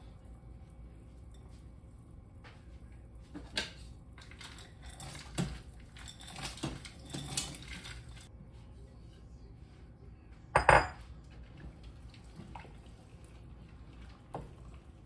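Cookware clatter: soaked red beans tipped from a glass bowl into a stainless steel pot, with a run of rattling clinks, then knocks of bowl and spoon against the pot. The loudest is a single sharp clank about ten and a half seconds in.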